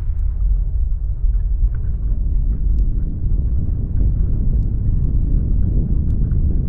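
Deep, steady earthquake rumble, with faint scattered ticks and crackles over it.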